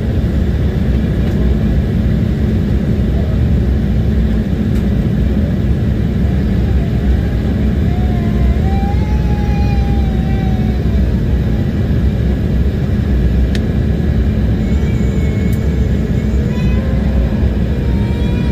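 Steady airliner cabin noise: a loud, even rumble of engines and airflow heard from inside the cabin. Faint wavering tones rise above it about halfway through and again near the end.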